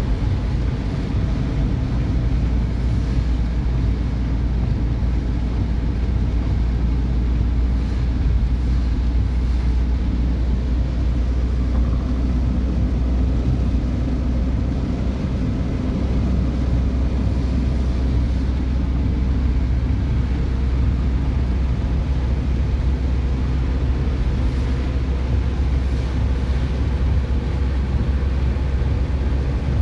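Steady low rumble of a car driving on a wet road, heard from inside the cabin: engine and tyres on wet pavement, even and unbroken throughout.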